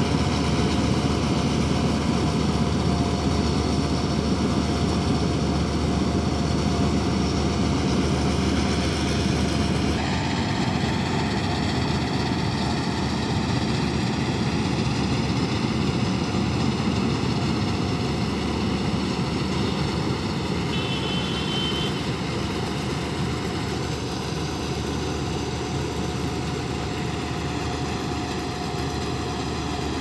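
Combine harvester running steadily as it cuts and threshes rice: a steady diesel engine drone with a thin whining tone from the machinery. The note shifts slightly about a third of the way in.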